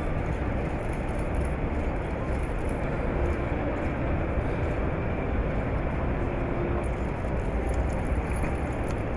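Steady low rumble of background noise in a large exhibition hall, even throughout, with no single distinct event.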